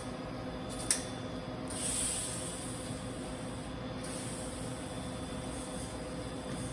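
TIG welding arc on carbon steel pipe: a steady hiss over a low electrical hum, with a sharp click about a second in. The hiss swells for a couple of seconds and then carries on more softly.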